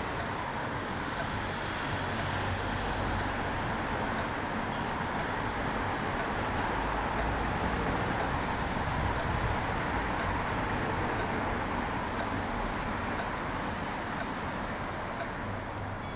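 Steady city road traffic noise, swelling gradually to a peak around the middle and easing off toward the end.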